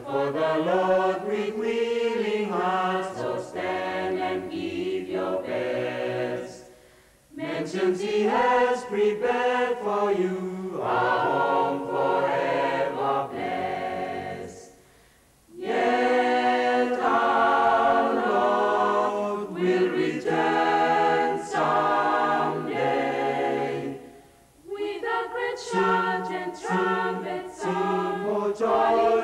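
A mixed choir of men's and women's voices singing a gospel song, in long phrases broken by three short pauses between verses.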